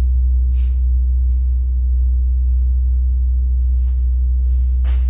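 A steady low rumble with no change in level, with a few faint clicks or knocks, one about a second in and one near the end.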